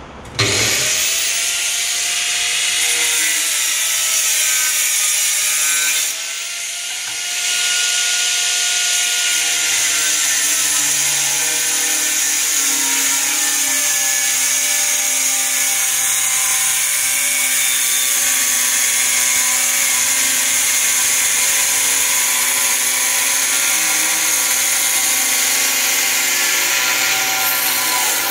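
Angle grinder with a diamond blade spinning up about half a second in, then a steady high whine and grinding noise as it cuts through a 2 cm porcelain stoneware tile. The sound eases briefly around six seconds in.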